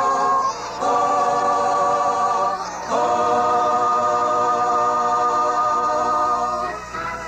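A choir sings long held chords, broken by two short pauses, and fades slightly near the end.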